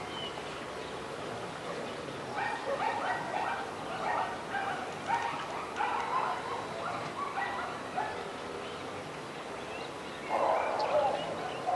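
A dog barking repeatedly in quick runs, pausing briefly and then barking louder near the end.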